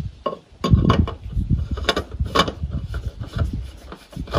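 Irregular clicks, knocks and scraping of tools and parts being handled during machine servicing work.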